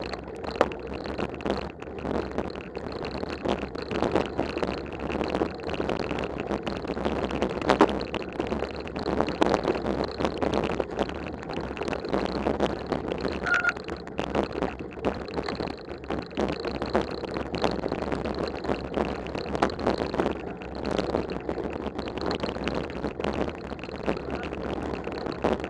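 Mountain bike ridden along a snow-covered trail: a continuous rumbling rattle of the bike and tyres over the snowy ground, with frequent small knocks and clatters.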